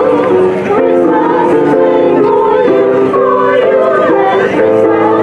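Mixed choir of men's and women's voices singing held notes in several parts, with electronic keyboard accompaniment.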